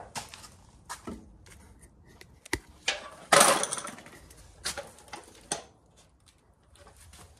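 Hand tools being handled on a garage workbench: scattered clicks and metal clinks, with a brief louder rustle about three and a half seconds in.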